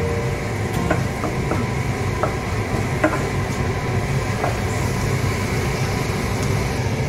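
A wooden spoon stirring onions and mushrooms in a frying pan, scraping and knocking against the pan about half a dozen times, the sharpest knock about three seconds in, over a steady low rumble.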